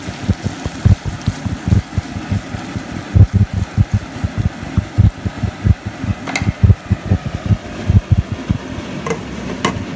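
Irregular low thumps and rumbling buffets on the microphone, like wind or handling noise, with a few sharp knocks in the second half.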